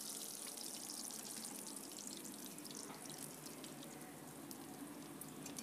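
Faint, steady sizzle of hot oil with light crackles as fried chitol fish pieces sit in and are lifted out of a shallow pool of oil in an aluminium pan.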